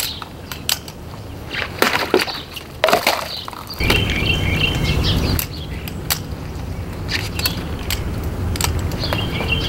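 Butterfly knife being flipped and slashed through bottles: a string of sharp clicks, knocks and cuts.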